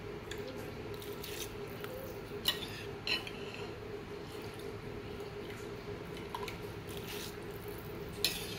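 Pot of salted water with soaked basmati rice coming back to the boil: faint bubbling over a steady hum, with a few light clicks about two and a half and three seconds in and again near the end.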